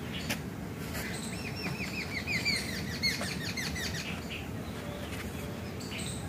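A bird gives a quick run of short, repeated chirps, about four a second, for a couple of seconds, over a low background rustle.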